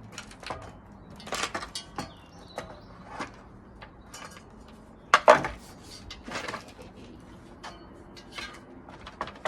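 Pallet splitter levering pallet boards apart: scattered clanks, knocks and creaks of wood and metal, with the loudest crack about five seconds in.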